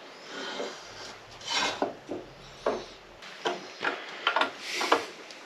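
A sheet-metal hydrofoil plate being slid and fitted onto an outboard motor's cavitation plate: several short scrapes and rubs of metal on metal, with a few light clicks.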